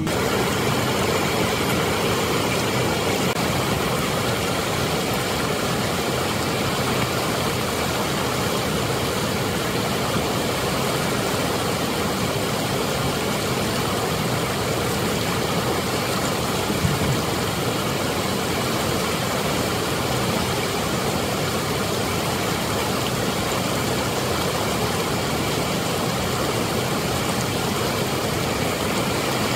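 Water rushing steadily through a dam's open spillway gates and churning over the rocks below.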